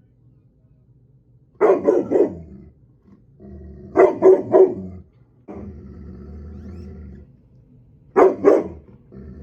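A dog barking in quick groups of two or three barks, three times over. Between the barks, a steady low mechanical hum starts and stops abruptly.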